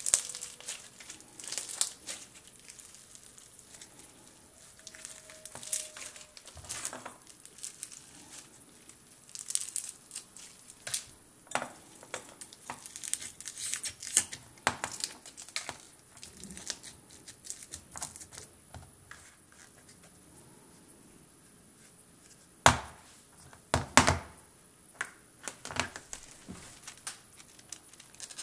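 Floam slime, foam beads packed in slime, squeezed and poked by hand, giving irregular crackling and crunching pops, with a few louder sharp clicks about four-fifths of the way through.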